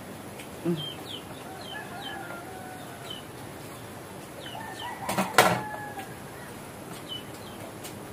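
Chickens calling: short high falling peeps repeated throughout, with lower clucking calls. A sharp knock about five seconds in is the loudest sound.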